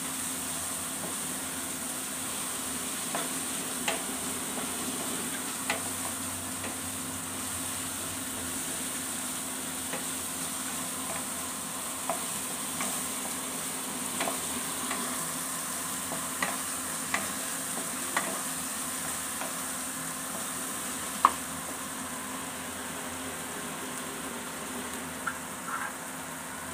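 A spatula stirring and scraping a thick masala paste of onion, ginger, tomato and ground spices frying in oil in a kadai, over a steady sizzle, with scattered light taps of the spatula on the pan and one sharper tap about two-thirds through. The oil has separated from the masala: the spices are well fried.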